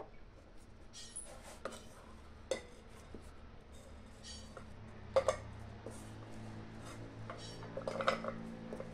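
Spoon scooping boiled drumstick pieces out of a kadhai of water, with scattered clinks and scrapes of metal against the pan; the loudest clinks come about five seconds in and again around eight seconds.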